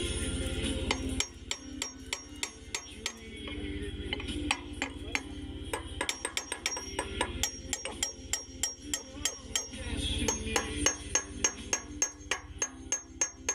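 Hammer striking steel on a bulldozer track's master link: sharp metallic blows with a ringing tone, irregular at first and then quickening to about three a second near the end. A low steady hum runs underneath.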